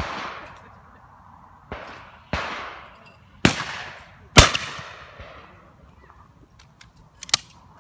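Beretta break-action shotgun firing at clay targets: a string of sharp shots over the first four and a half seconds, each trailing off in an echo, the last the loudest. Near the end come short sharp metallic clicks as the gun is broken open.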